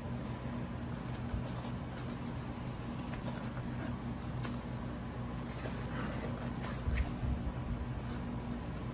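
Handling noise of a fabric backpack: rustling and small clicks as a front compartment is opened and moved about, with a soft bump about seven seconds in. A steady low hum runs underneath.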